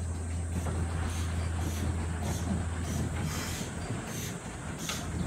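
C12-class tank steam locomotive moving slowly along the track with an open wagon of riders. It makes short hissing exhaust puffs about every half second to second over a steady low hum.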